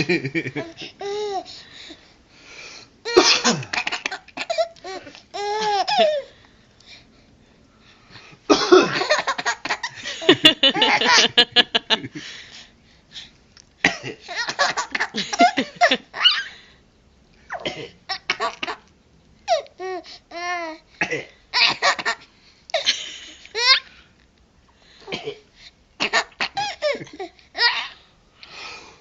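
A baby laughing in repeated fits of high-pitched giggles, several bursts with short pauses between them, set off each time by a man's coughs.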